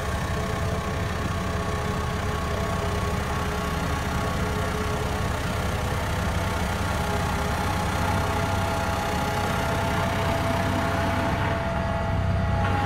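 Diesel engine of a Sakai single-drum road roller running steadily as the roller drives over a crushed-stone base, growing a little louder near the end as it comes closer.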